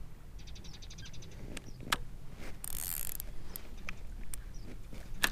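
Spinning reel on a feeder rod being worked: a quick run of ratchet-like ticks about half a second in, then a few sharp single clicks and a short high hiss in the middle.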